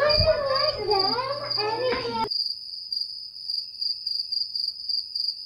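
Cricket-chirping sound effect, a steady pulsing high chirp, the stock 'crickets' gag for an awkward silence. A high-pitched voice runs under it for the first two seconds, then all other sound cuts out and only the crickets remain.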